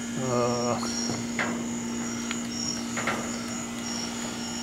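Crickets chirping: a regular high pulsed chirp about twice a second over a steady high trill. A few light knocks and clicks come from the lathe being handled, and a brief low tone sounds just after the start.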